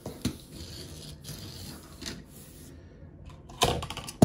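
Small hard clicks and clinks of die-cast toy cars being handled and set down, a few scattered at first, then a quick run of louder clicks near the end.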